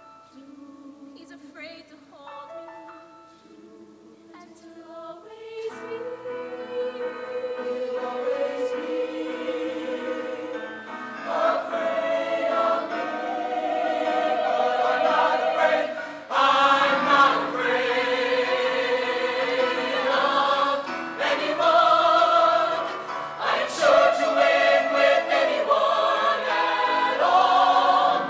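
High school show choir singing held chords, soft at first, swelling fuller about five seconds in and louder again a little past halfway.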